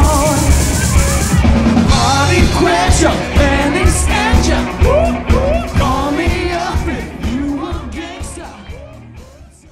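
A pop-rock band plays with a drum kit while a female lead singer sings wordless runs that glide up and down. The music fades out over the last few seconds.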